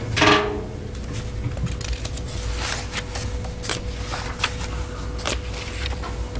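Meeting-room background before business starts: papers handled and rustled on the table, with scattered small clicks and knocks over a steady faint hum. Right at the start there is a brief loud sound that falls in pitch over about half a second.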